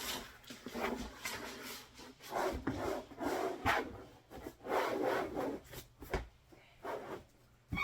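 Cutting mat being unrolled, slid and pushed over a tabletop: a series of rubbing, scraping swishes, each about half a second to a second long.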